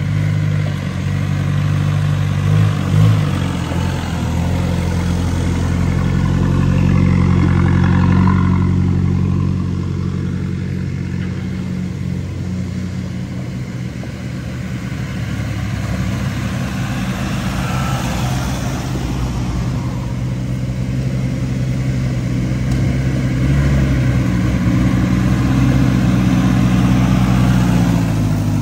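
Toyota Hilux pickup engines running at low, steady revs as the trucks crawl up a dirt trail, with the sound of tyres rolling over dirt and leaves. It swells as each truck nears the camera, loudest near the end as one passes right beside it, and there is a short clatter about three seconds in.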